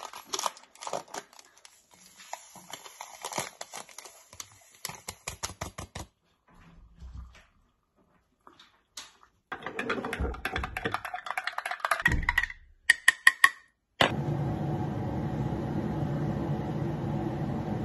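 A hot drink being made in a glass mug: light clicking and rustling at first, then water poured from a stainless-steel electric kettle, and a few sharp clinks on the glass. About three-quarters of the way through, a steady hum starts abruptly and runs on.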